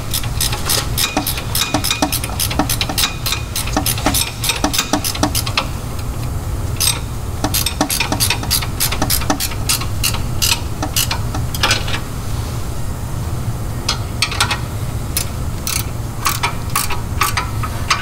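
Ratchet socket wrench clicking in quick runs of strokes as nuts are tightened down by hand, with a pause of a couple of seconds about two-thirds of the way through. A steady low rumble runs underneath.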